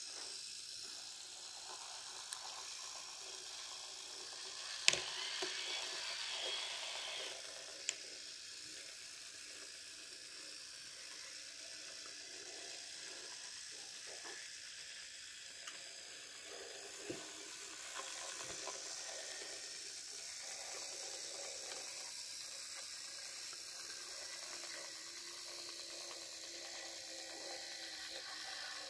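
Small electric motor and gearing of an H0f narrow-gauge model locomotive whirring steadily as it runs along the track. There is a sharp click about five seconds in and a few lighter clicks later.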